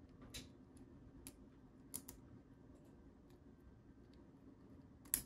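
Faint clicks and a short scrape of a phono cartridge and its small mounting screws being handled and fitted into a turntable headshell, a few scattered clicks with the sharpest one near the end.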